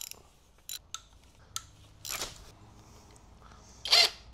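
Scattered small metallic clicks and taps from hands and tools working at a bare engine block's oil pump and timing sprocket, then a brief burst from a DeWalt cordless drill near the end.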